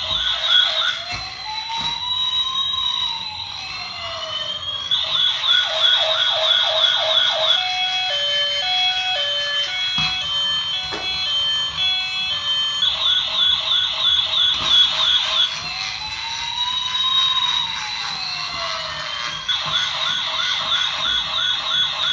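A toy police car's electronic sound chip plays a siren: a fast warble, then a single wail that rises and falls, then the warble again, followed by a short beeping tune. The whole pattern repeats about every eight seconds, with a few light clicks in between.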